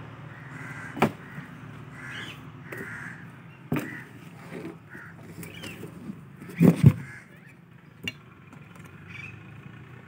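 Heavy truck tyre being tipped and dropped on hard ground: a few sharp thumps, the loudest a double thump about two-thirds of the way through. Birds call repeatedly in short calls throughout.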